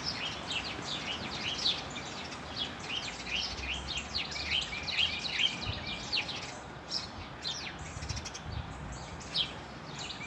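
A flock of small songbirds chirping continuously, many short quick chirps overlapping one another.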